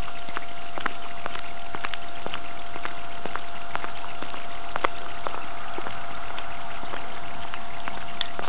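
Footsteps on a gritty, sanded asphalt road at an even walking pace, about two a second, thinning out in the second half, over a steady hiss with a constant tone.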